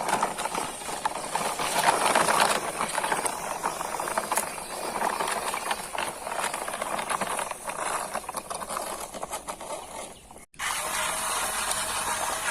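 Rattling, clicking machinery with a hiss, cutting off abruptly about ten and a half seconds in; a steadier sound with a faint held tone follows.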